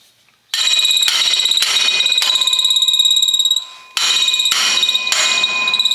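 A steel sweep being driven onto a field cultivator shank with rapid hammer blows, the metal ringing with each stroke. Two runs of blows, with a short break about three and a half seconds in.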